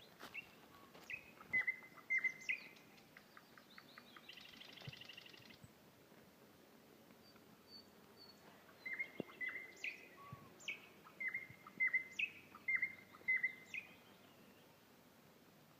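A small songbird singing: two runs of short, sharp high chirps, with a rapid buzzy trill between them about four seconds in.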